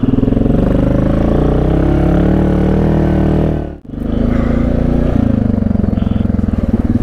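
Yamaha Grizzly ATV's single-cylinder engine running while riding on a trail, its note shifting with the throttle. The sound drops out for a moment a little before four seconds in, then picks up again.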